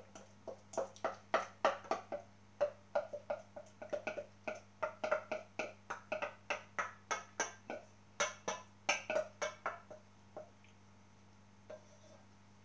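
A kitchen utensil knocking and scraping against a pan and plate as cooked food is served out. It is a quick run of short, slightly ringing knocks, about three or four a second, that stops about ten seconds in.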